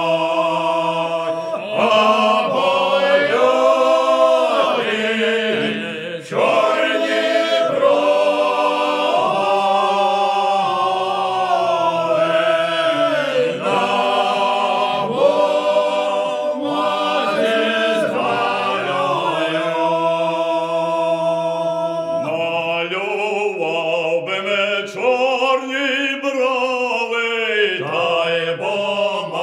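A group of village singers sings a Ukrainian lyrical folk song unaccompanied, in several voices, drawing out long notes that glide from pitch to pitch.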